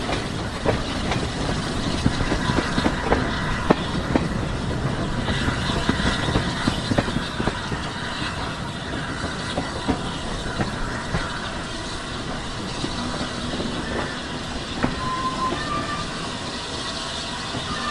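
Passenger train running along the line, heard from aboard the train hauled by steam locomotive 60103 Flying Scotsman: a steady rumble and hiss, with irregular clicks and clatter from the wheels over the rail joints.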